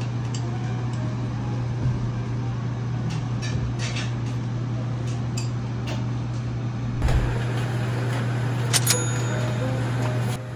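Café room tone: a steady low hum, with scattered light clicks and taps, a thump about seven seconds in and a sharper clink near the end.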